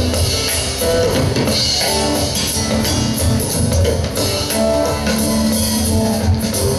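Live band playing an instrumental break in a country-rock tune: strummed acoustic guitar over a drum kit and upright double bass, with no singing.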